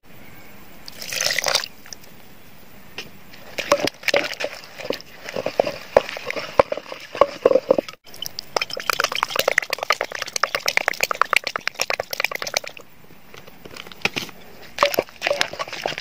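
Plastic spoon stirring and tossing a runny chili-and-tomato dressing in a mortar: wet sloshing with many small clicks, which turn into a fast run just past the middle.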